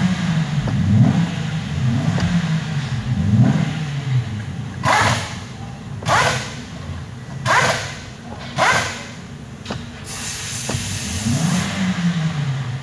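2019 Toyota Rush's engine idling, its note rising and falling in slow waves as the steering is turned back and forth, with several short swishing sounds in the middle. No clicking comes from the steering column, whose suspect bushing bolt has been removed: the noise has gone.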